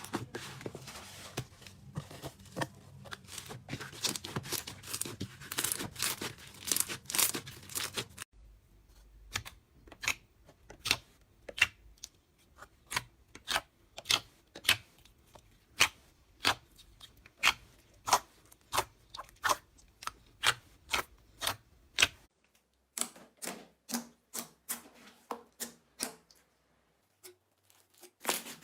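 Slime being pressed and stretched by hand, giving a run of sharp clicking pops. The pops come thick and fast at first, then settle to about two a second, in several short takes.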